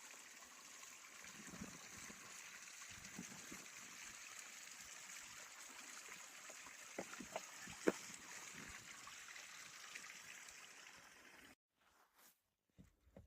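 Running water trickling steadily, with a few sharp clicks about halfway through. It cuts off abruptly near the end, leaving near silence with a few faint ticks.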